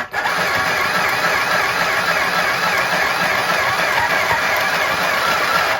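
Mini sewing machine's small electric motor running steadily as it stitches fabric, stopping suddenly at the very end.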